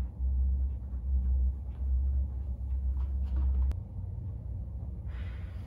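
A steady deep background rumble cuts off suddenly with a click a little before four seconds in, leaving quieter room noise. A brief soft hiss follows near the end.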